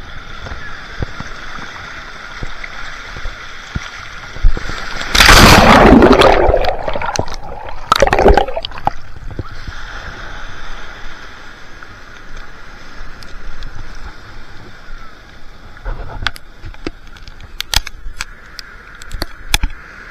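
Surf and shallow seawater washing around a camera held at the waterline. About five seconds in there is a loud rush of water lasting a couple of seconds, with a second, shorter splash just after it. Scattered sharp ticks and knocks come near the end.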